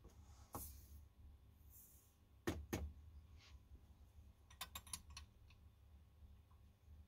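Faint clicks and taps of brass rifle cartridges being handled at a reloading bench, with one louder knock about two and a half seconds in and a quick run of small clicks near five seconds.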